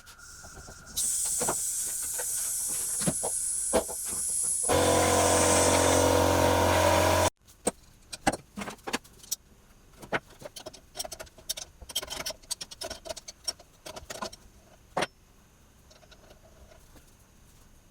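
Compressed air hissing out for a few seconds, then a small air compressor's motor running with a steady hum, which cuts off abruptly about seven seconds in. Scattered light clicks and taps follow.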